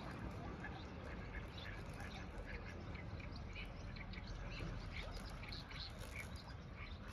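Ducks calling: short, high calls repeated several times a second over a low steady background.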